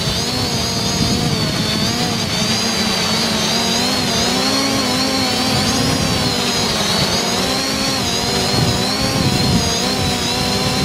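Small multirotor drone's electric motors and propellers whining steadily, with several pitches that waver slightly up and down together.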